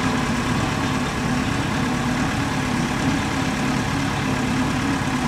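Engines of farm machinery, a tractor and a combine harvester, running steadily in an even drone.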